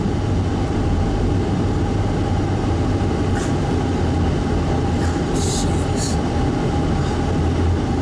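Steady low rumble of a car's engine and tyres on the road, heard from inside the cabin while driving. A couple of brief hissing sounds come about five to six seconds in.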